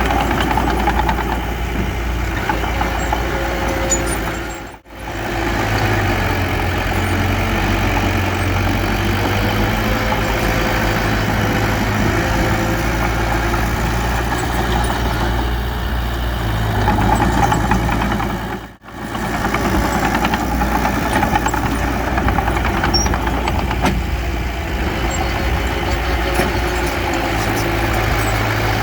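Heavy diesel engine of earthmoving machinery running steadily with a deep drone. The sound cuts out for a moment twice, about a third of the way in and again past the middle.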